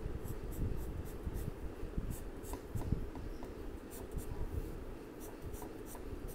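Purple colored pencil shading on paper in quick back-and-forth strokes, a light scratching repeated a few times a second.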